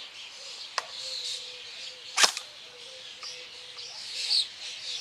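A single shot from an SRC SR4 M4 electric airsoft gun (AEG) fired through a chronograph: a sharp crack about two seconds in, with a smaller click about a second in. Birds chirp steadily in the background.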